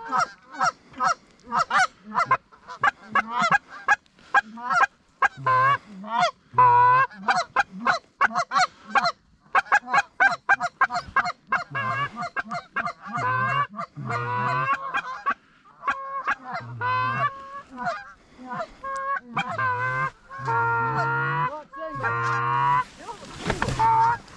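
A flock of Canada geese honking and clucking overhead in quick, near-continuous calls, with a few longer drawn-out honks.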